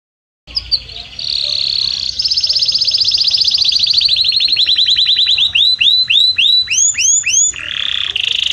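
Domestic canary singing, starting about half a second in: fast rolling trills that slow into a run of repeated swooping whistled notes, about three or four a second, before breaking back into a quick trill near the end.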